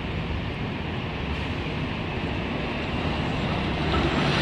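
City transit bus driving up and passing close by, its engine and tyres getting louder near the end, over steady street traffic noise.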